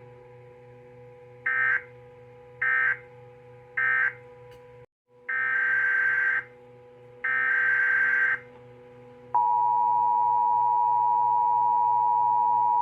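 Emergency Alert System data tones: three short screeching data bursts that close the previous alert, a brief dropout, then two longer data bursts of the next alert's header. About nine seconds in, the steady two-tone EAS attention signal starts and stays on. A faint electrical hum sits underneath.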